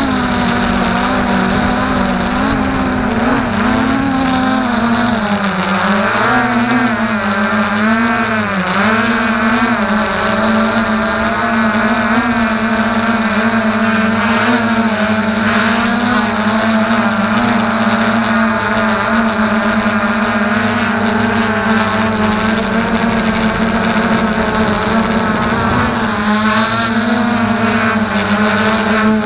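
FreeX Skyview quadcopter's electric motors and propellers whining, heard close from the camera on the quadcopter. The pitch wavers up and down with throttle changes for a few seconds early on, then holds steady.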